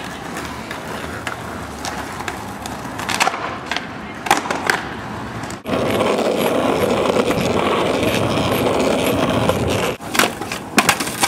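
Skateboard sounds. First a few sharp clacks of a board on concrete. Then, after a sudden change, a steady rumble of skateboard wheels rolling over pavement for about four seconds. Near the end, the pop and clatter of a board as a skater does a trick off a concrete block.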